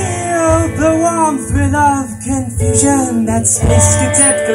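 Live rock band playing: electric guitars, bass guitar and drum kit, with a melodic line that bends up and down in pitch over a steady low pulse, heard through the PA.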